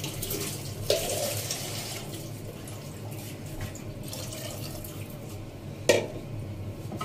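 Soaked dal and its water being poured from a bowl into a pressure cooker, splashing in a loud rush about a second in and then running on more quietly. A single sharp knock comes near the end.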